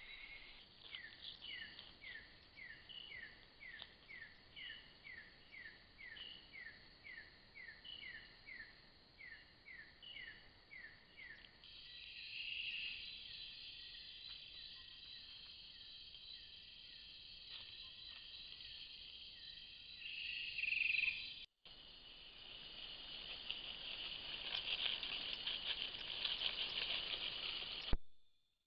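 Forest insect chorus: a steady high-pitched trilling, joined for the first ten seconds or so by a short falling chirp repeated about twice a second, and swelling louder near the end.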